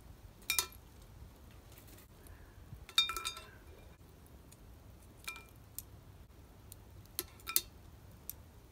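Metal tongs clinking against the cast-iron lid of a Petromax FT3 Dutch oven as hot coals are set on it: several sharp clinks with a brief ring, the loudest about three seconds in.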